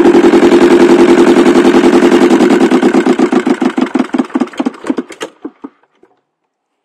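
24 hp Arona/Lombardini twin-cylinder marine diesel running steadily, then shut down: from about two and a half seconds in its firing beats slow, spread apart and fade as it runs down, stopping about six seconds in.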